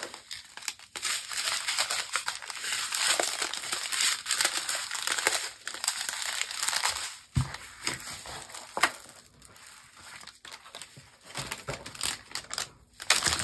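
Plastic packaging crinkling and rustling in irregular crackles as the bagged diamond painting drills and kit are handled, with a quieter lull about two-thirds of the way through.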